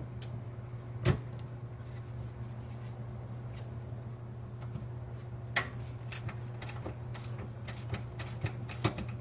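Sharp plastic clicks and knocks as the microwave door's plastic bezel and parts are handled and fitted: one loud knock about a second in, another about halfway, then a run of lighter clicks near the end, over a steady low hum.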